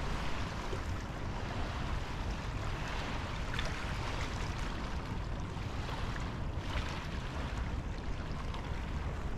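Small waves of the River Thames lapping steadily on a pebbly foreshore, with a low rumble of wind on the microphone.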